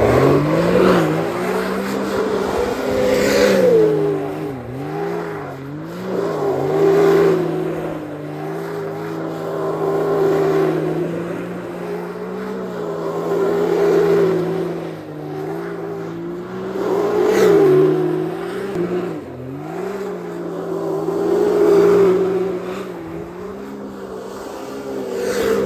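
Can-Am Maverick X3 side-by-side's engine held at high revs while it spins donuts on asphalt, its rear tires spinning and smoking. The sound swells and fades about every three and a half seconds as the car circles, with brief dips in revs.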